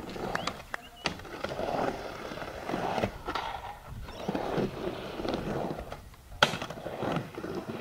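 Skateboard rolling on a concrete ramp, the urethane wheels making a continuous rumble, broken by several sharp clacks of the Independent trucks hitting the coping and the board slapping down. The loudest clack comes about six and a half seconds in.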